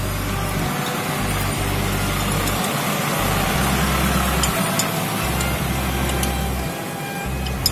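Background music with a bass line that steps from note to note, and a few faint clicks over it.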